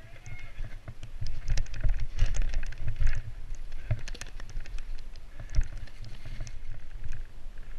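Mountain bike jolting down a rocky trail covered in dry leaves: a constant low rumble of shaking and wind on the microphone, with many sharp clicks and clatters as the tyres and bike hit the stones.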